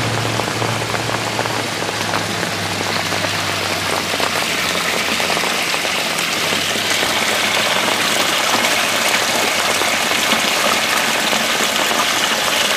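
Stormwater runoff pouring through a cast-iron storm sewer grate: a steady rushing splash of water from a flash flood overloading the drain. A low engine hum fades away in the first few seconds.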